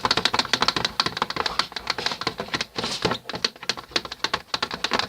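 Glue-and-shaving-foam slime being stirred and squished: a rapid, continuous run of wet clicks and squelches.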